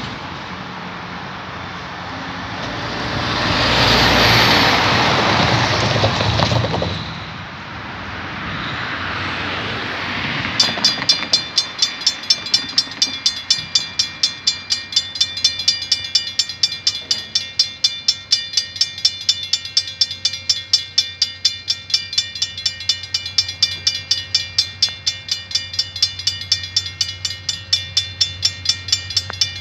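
A car drives past the crossing. About ten seconds in, the level-crossing warning bell starts ringing in rapid, evenly spaced strikes and keeps going, the signal that a train is approaching the crossing.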